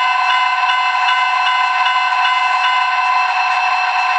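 Model diesel locomotive's DCC sound decoder playing a diesel engine idle through its small onboard speaker: a steady, thin buzzing drone with nothing deep in it.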